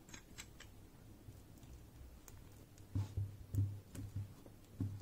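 Small plastic parts of a mini tripod and its ball-head mount being handled and screwed together: a few faint clicks at the start, then a run of soft low knocks and bumps from about three seconds in.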